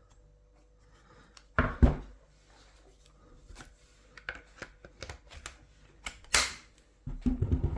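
Handling noises as a rubber protective boot is worked onto a cordless impact wrench: a loud thump about two seconds in, scattered clicks and knocks, a brief rustle, and a cluster of knocks near the end.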